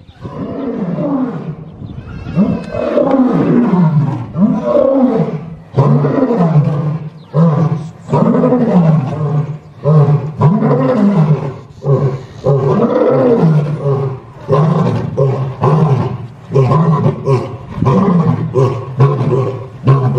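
Lion roaring: a long series of roars about a second apart, each one rising and then falling in pitch.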